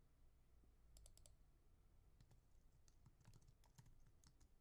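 Near silence with a few faint, scattered clicks of a computer keyboard being typed on.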